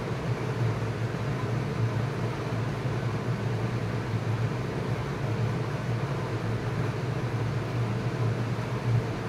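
Steady low hum with an even hiss over it.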